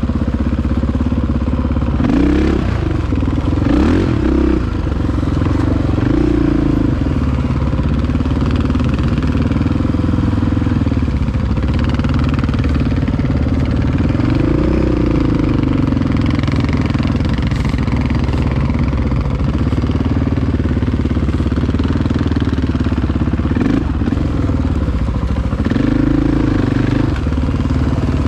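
Honda XR-650R's big single-cylinder four-stroke engine running at low trail speed. Its pitch rises and falls briefly a few times with small throttle openings, and a few knocks come from the bike over the ground.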